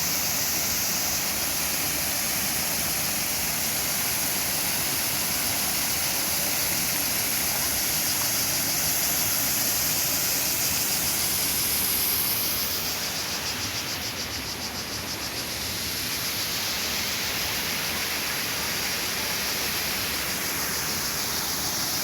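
Steady rushing water with an even hiss, dipping slightly in level for a few seconds past the middle.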